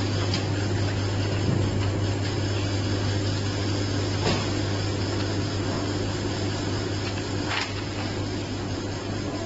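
Heat-shrink machine running steadily while it heats and shrinks a plastic sleeve onto a battery pack: a constant electric hum over a rushing noise, with a few faint ticks.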